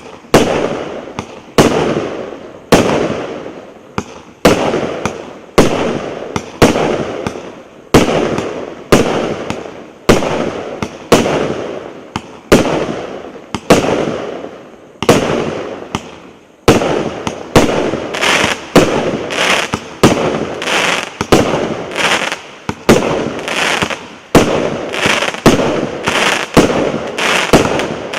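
A 96-shot, 1.1-inch "Tsar-Kolokol" firework battery firing a steady volley. Each shot is a sharp bang that trails off into crackling. The shots come just over a second apart at first, then faster and with more crackle in the latter part.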